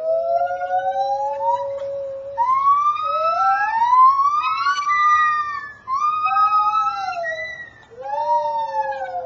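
White-handed (lar) gibbons singing: a string of long whooping calls that glide upward in pitch, often two voices at once. The calls break off briefly about six and eight seconds in, and the last ones arch up and fall.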